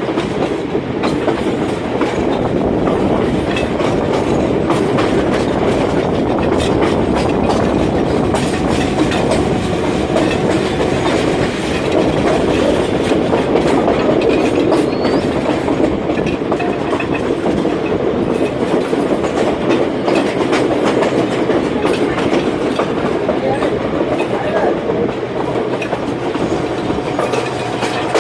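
Passenger train running along the track, its wheels clattering steadily with frequent sharp clicks over the rails, under a continuous rumble.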